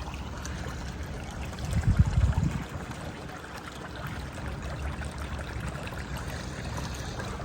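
Swimming-pool water trickling and sloshing, a steady watery noise, with a brief louder low rush about two seconds in.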